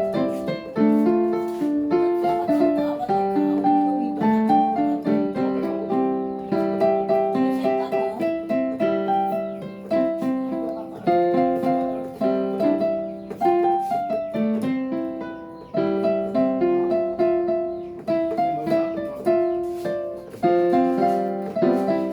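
Piano playing a Christmas tune: a melody of struck notes, each fading away, over a low note held underneath.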